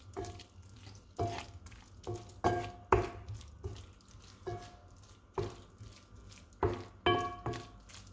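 Wooden spoon stirring a thick chicken, bacon and flour mixture in a frying pan, knocking and scraping against the pan about a dozen times at an uneven pace, the harder knocks making the pan ring briefly.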